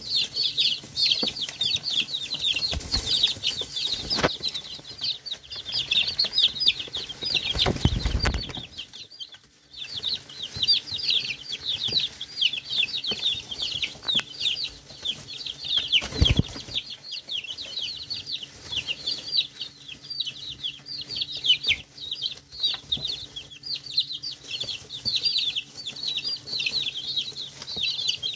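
A flock of young chickens peeping continuously while pecking at food: many short, high, falling peeps overlapping several times a second. A few dull low thumps break in, the longest about eight seconds in.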